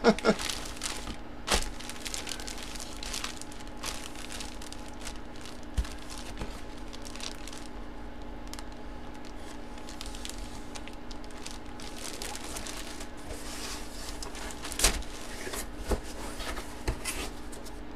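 Plastic bag crinkling and rustling as a packaged jersey is handled, with a few sharper knocks, the loudest about fifteen seconds in, over a steady low hum.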